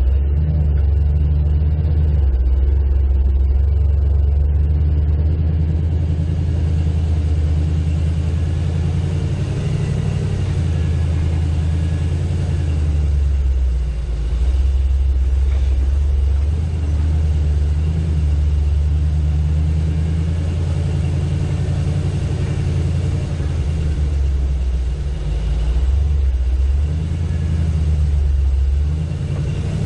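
Off-road 4x4's engine running steadily at low revs with a deep note, easing off briefly a few times.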